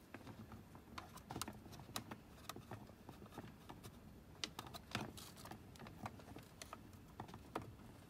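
Irregular light clicks, taps and rattles of hands working at cable connectors and wiring behind a car's dashboard, as a tight connector is worked loose from the Autopilot computer.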